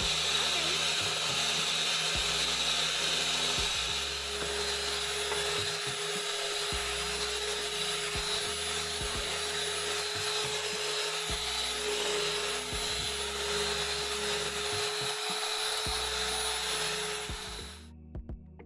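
Electric hand mixer running steadily with its beaters in thick cookie dough, a steady motor whine, switched off suddenly near the end.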